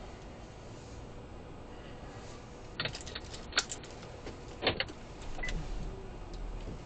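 Quiet car cabin with a faint low hum, broken by two short clusters of sharp clicks and taps, about three seconds in and again just before five seconds.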